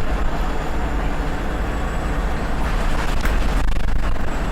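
Volvo B7RLE bus's turbocharged six-cylinder diesel engine running with a steady low rumble and a thin, steady high turbo whistle. A couple of sharp rattles come about three and four seconds in.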